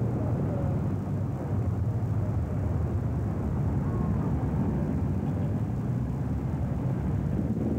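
Steady rumble of road traffic, cars passing along a multi-lane boulevard, as a low continuous noise without distinct events.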